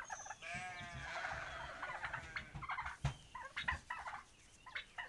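A farm animal's drawn-out call lasting about two seconds, followed by a few scattered knocks.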